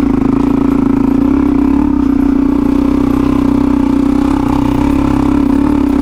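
Suzuki DRZ400E single-cylinder four-stroke dirt bike engine running at steady revs under load as it climbs a rocky trail.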